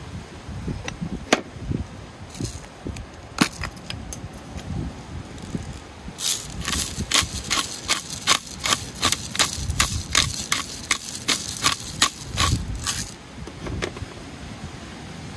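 Black-pepper grinder being twisted over a cooking pot, a quick even run of clicks, about three a second, for some seven seconds starting about six seconds in. A few single knocks come before it.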